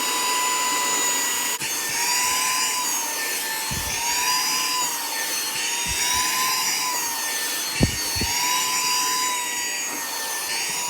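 Saker 3-in-1 cordless mini vacuum running as it is used on a sofa: a steady high motor whine with air rush, dipping slightly in pitch every second or two. A few soft low bumps come about midway and near the end.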